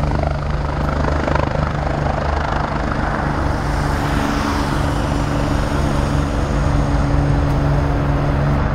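Eurocopter EC145 twin-turbine helicopter taking off and flying away low: a steady beat of the main rotor over the engines' running noise, holding level throughout.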